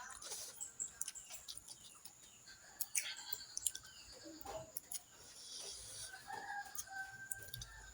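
Close-up eating sounds: chewing and wet mouth clicks. A short pitched animal call, like a hen's clucking, comes in about six seconds in and lasts a second or two.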